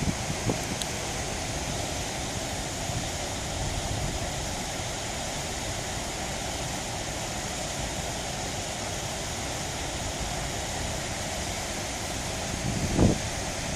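Coal freight train rolling across the bridge overhead, a steady rumble with a few low knocks at the start and a heavier knock near the end.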